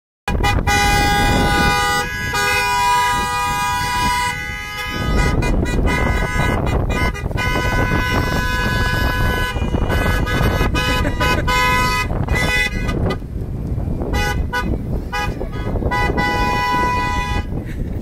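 Car horns honking again and again from a slow line of passing cars, several horns at different pitches sounding at once in long held blasts, over a steady low rumble.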